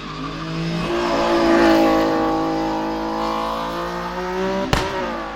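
Hillclimb race car engine at hard throttle passing by, loudest about a second and a half in, then fading as its pitch falls. A single sharp crack near the end.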